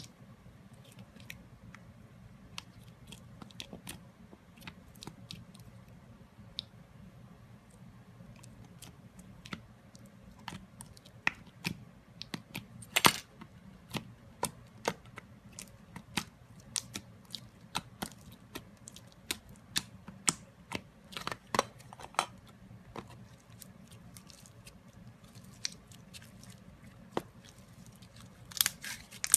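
Slime being handled, giving off scattered sticky clicks and small crackling pops, irregular and sparse at first and growing denser and louder toward the end.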